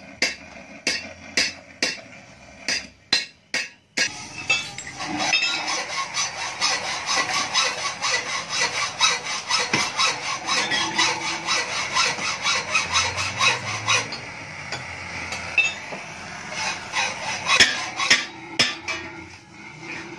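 Metal knocking and scraping inside the stock steel muffler canister of a Yamaha Lexi scooter as its internal baffles are gouged out. A few separate knocks come first, then about ten seconds of fast, even rasping strokes, then separate sharp knocks again near the end.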